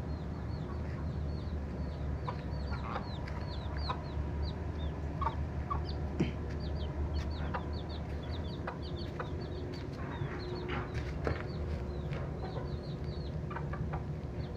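Farmyard birds calling: a stream of short, high chirps, several a second, with occasional lower clucks, over a steady low hum.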